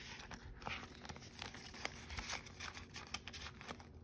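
Paper bills rustling and a clear plastic binder pouch crinkling as cash is handled and slipped into it, with many small irregular crackles and clicks.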